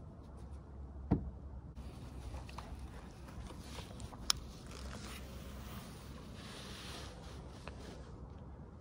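Faint handling noise from a baitcasting reel and rod: a low knock about a second in and a sharp click about three seconds later, over a soft hiss.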